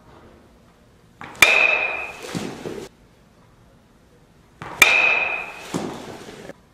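Baseball struck twice off a batting tee with a metal bat, each hit a sharp ringing ping, the two hits about three and a half seconds apart. Each ping is followed about a second later by a duller knock as the ball lands in the cage.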